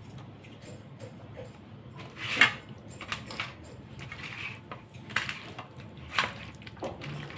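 Hands squishing and turning chicken pieces in a wet cornflour marinade in a stainless steel bowl: irregular wet squelches with knocks of the chicken and knuckles against the bowl, the loudest about two and a half seconds in.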